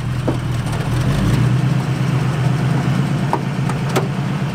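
A 1974 Jeep Cherokee's engine idling steadily while the truck sits stopped. A few sharp clicks come over it, the last about four seconds in, as the driver's door is opened.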